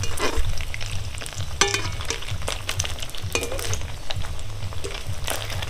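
Rice pakoras sizzling as they deep-fry in hot oil in a metal kadai. A perforated slotted spoon clinks and scrapes against the pan a few times as they are turned over.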